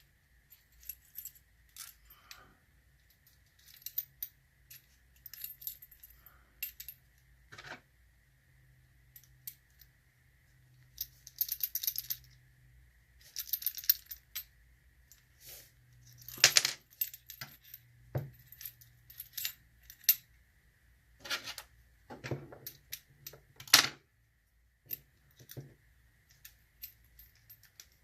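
Small metal clicks, clinks and short rattles of an American Lock padlock being taken apart with a screwdriver, its metal parts knocking together, with a few sharper clinks in the second half.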